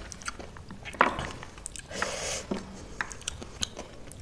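Close-up mukbang eating sounds: chewing and crunching a mouthful of spicy chatpate, with small clicks throughout and one sharp click about a second in.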